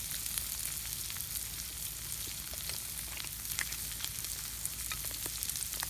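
Potato wedges, sausages and onion frying in oil in an iron pan: a steady sizzle with scattered sharp pops.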